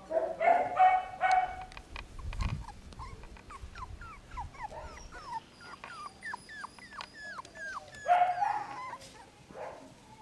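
Daxipoo puppies yapping in high bursts near the start and again near the end. In between comes a run of short, high, falling squeals, about two or three a second, as they play-attack a bigger dog.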